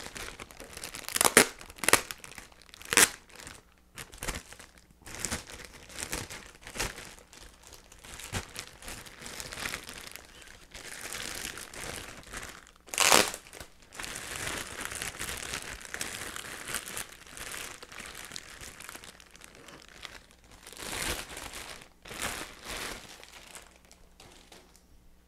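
Clear plastic wrapping crinkling and crackling as it is worked and pulled off a telescope tube. There are sharp loud crackles about one, two and three seconds in and again around thirteen seconds, and denser crinkling in the later half.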